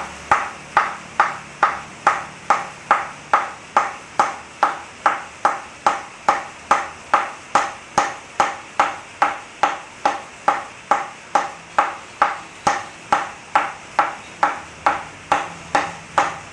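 A ball bounced steadily on the face of a wooden cricket bat, a sharp knock with a short ring about twice a second, as the bat is knocked in to season it.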